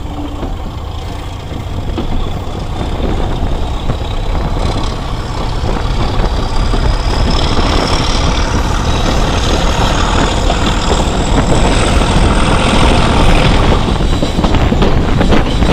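Train hauled by a Class 31 diesel-electric locomotive with an English Electric V12 engine, pulling away and accelerating, heard from an open coach window behind it. The running noise grows louder and a high whine rises steadily in pitch as speed builds, over the rumble of the coaches on the rails.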